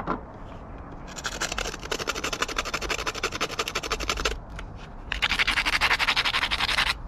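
Spark plug scrubbed against a sandpaper disc in rapid back-and-forth strokes, sanding carbon off the plug to clean it. Two bouts of scratching, the second louder.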